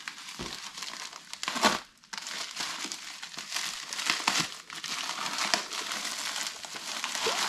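A packaging bag crinkled and torn open by hand: a continuous rustle of small irregular crackles, with one louder crackle about a second and a half in.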